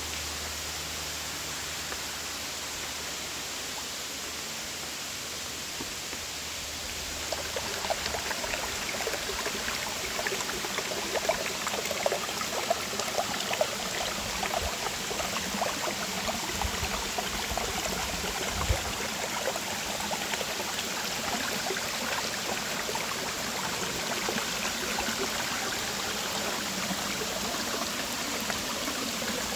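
Creek water running over rocks in a small rainforest cascade: a steady rushing for about seven seconds, then closer, busier splashing and gurgling with small sharp splashes.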